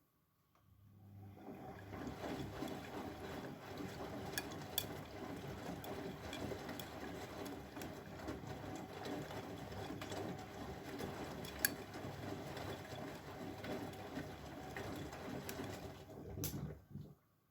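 Bosch Maxx WFL 248Y front-loading washing machine on its wash cycle: the drum starts turning about a second in, tumbling the wet load with a steady motor and water sound and a few sharp clicks, then stops shortly before the end.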